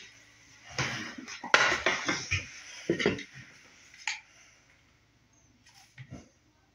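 Hard plastic hair tools, a paddle hairbrush and a hair straightener, being handled, set down and picked up: a spell of clattering with several sharp knocks in the first three seconds, a single click about four seconds in, and a soft knock near the end.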